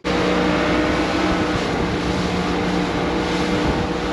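Small fishing boat's engine running steadily at speed, with a constant hum under the rush of wake water.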